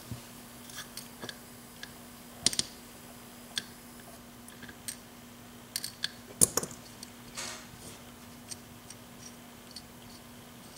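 Scattered small clicks and taps of metal lock parts and tools being handled on a work surface while a Yale drawer lock is taken apart, with two louder knocks and a short scrape among them.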